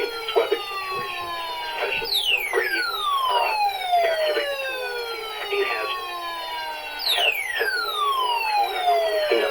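Electronic siren tone of a mock Emergency Alert System weekly test, gliding steadily down in pitch and restarting high twice, about five seconds apart.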